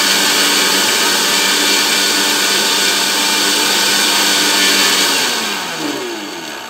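Electric mixer grinder running at full speed, grinding dry whole cumin seeds to powder. About five seconds in it is switched off and the motor winds down with a falling whine.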